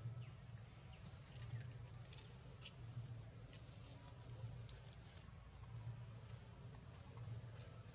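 Faint outdoor ambience: a steady low hum, with short high chirps that sweep downward, about one every two seconds, and a few faint scattered ticks.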